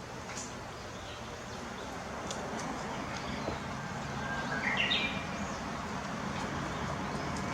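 Japanese bush warbler singing once about halfway through: a short low note, then a quick rising flourish. It is heard over a steady low rumble of distant traffic, with a few faint high chirps.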